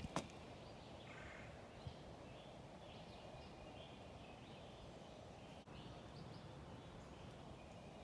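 Quiet woodland ambience: a low, even background hush with faint, scattered bird chirps.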